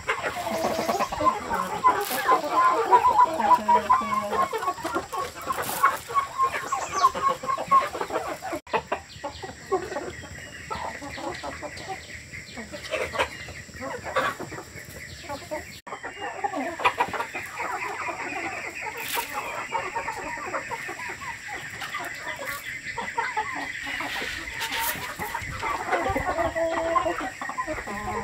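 A flock of chickens clucking. The calling is busiest and loudest for the first eight seconds, then drops suddenly, and a faint steady high tone carries on under it.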